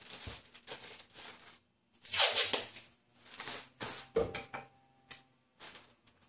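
Clear plastic parts bag crinkling and rustling as it is handled, in several bursts with the loudest about two seconds in, followed by a few short ticks near the end.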